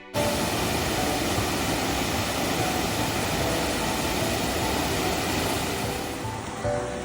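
Rushing water of a waterfall: a steady, dense noise that starts abruptly just after the beginning, with faint music underneath.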